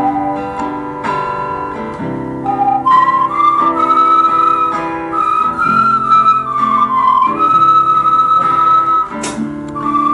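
Ocarinas playing a smooth melody, with an accompaniment of lower chords underneath.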